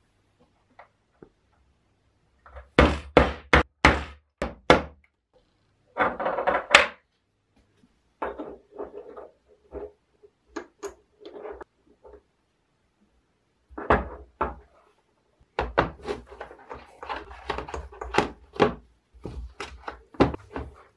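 Steel jack hammer parts, the connecting rod and piston, being handled and knocked against a wooden workbench. It comes as a run of sharp knocks and clacks, with a longer rattle about six seconds in and a busy stretch of knocking in the last seven seconds.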